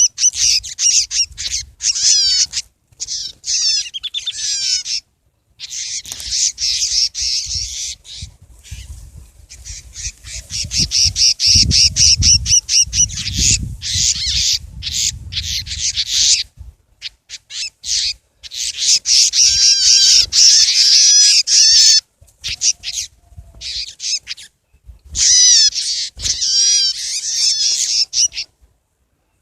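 Prinias (ciblek) chirping and trilling rapidly and loudly, in dense bursts separated by short sudden gaps.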